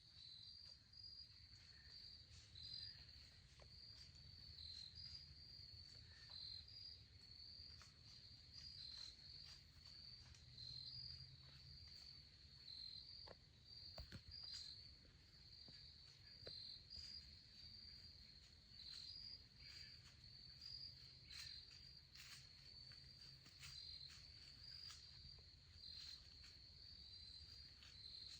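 Faint, steady high-pitched cricket chirping: one continuous trill with brief regular breaks, with a few faint scattered ticks.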